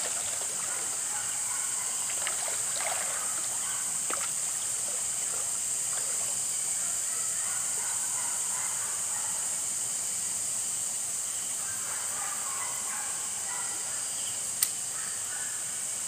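Shallow stream water splashing and trickling as someone wades through it, over a steady high-pitched chorus of night insects. A single sharp click near the end.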